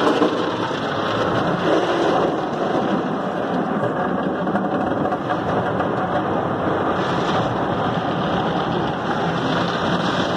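Automatic tunnel car wash heard from inside the car's cabin: a steady rush of water spray and foam on the glass and body, with soft-cloth brushes scrubbing across the windshield.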